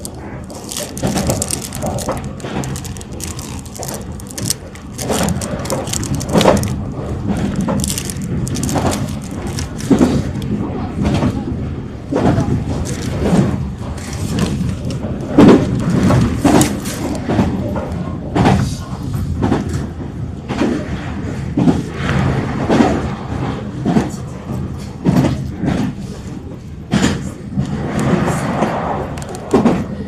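Meitetsu Seto Line electric train running, heard from inside the car: a steady rumble broken by irregular knocks and clatter of the wheels over the track.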